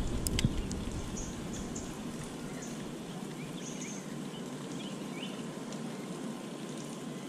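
Birds chirping in short, scattered calls over a steady low background rumble, with two sharp clicks in the first half second.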